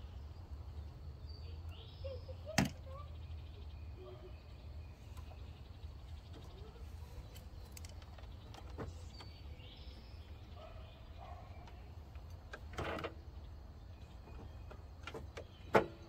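A few sharp clicks and taps, the loudest about two and a half seconds in and just before the end, from multimeter test probes and leads being handled at an ignition coil pack, over a steady low hum.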